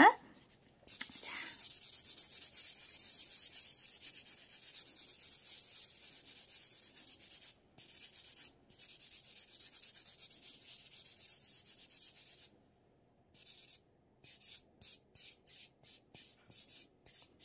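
A soft sponge sanding buffer rubbed back and forth over a fingernail, giving a fine, steady scratchy hiss, to lightly sand the nail so dust marks the edge of the remaining gel. After about twelve seconds it stops briefly, then comes back as a run of about ten short, separate strokes.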